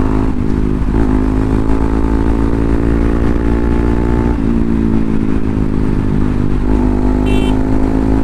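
Bajaj Pulsar NS200's single-cylinder engine running at a steady cruise on the road, heard from the rider's seat, its pitch dipping briefly a few times. A short high-pitched blip sounds about seven seconds in.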